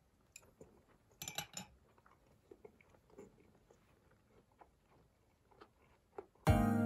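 A person chewing a bite of toaster-baked atsuage (thick fried tofu) with octopus inside: quiet, scattered mouth clicks, with a louder moment about a second in. Background music comes in near the end.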